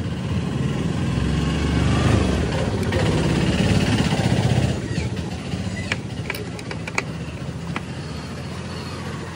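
A motor vehicle engine running steadily, louder for the first half and then settling lower. A few sharp metallic clicks of a spanner on bolts come about two-thirds of the way through.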